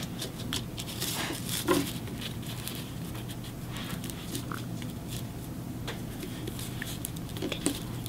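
Faint rustling and light scattered taps of hands working a wire and cardstock against a wooden tabletop, over a steady low hum.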